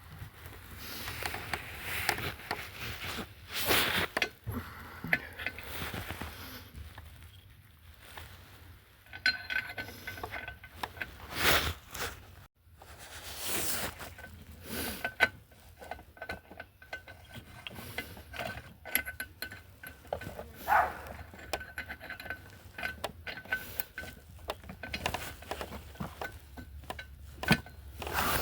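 Metal hand tools clinking and clicking in irregular knocks and rattles, with a faint steady high whine from about a third of the way in until near the end.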